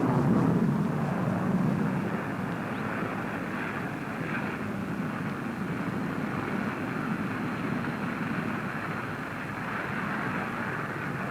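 Jet aircraft engine noise: a steady rushing roar, loudest in the first couple of seconds and then holding level. It has the dull, treble-less sound of an old film soundtrack.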